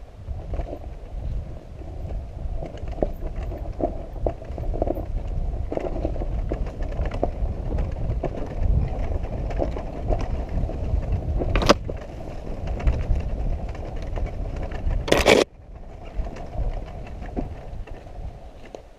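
Yamaha YZ dirt bike coasting down a forest trail with its engine switched off, heard from a helmet camera: tyres rolling over dirt and leaves, the chassis rattling, and wind on the microphone. A sharp knock comes about 12 seconds in and a brief loud rush about 15 seconds in.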